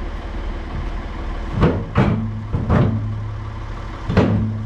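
A tractor engine running steadily, with four sharp metal knocks as the forks bump against a stuck loader bucket to work it free.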